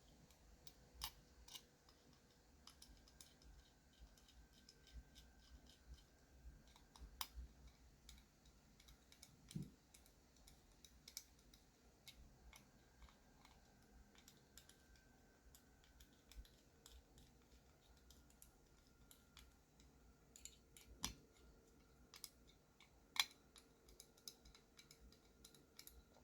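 Faint, scattered clicks and light taps of small metal knife parts and screws being handled while aluminium handle scales are fitted to a folding knife.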